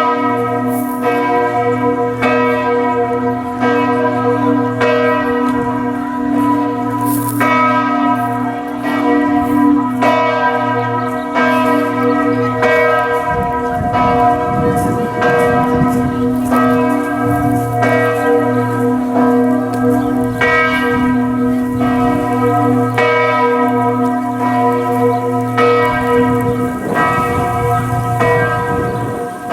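Chartres Cathedral's church bells ringing, about a stroke a second over a steady low hum. The tone is dark, with distorted-sounding overtones.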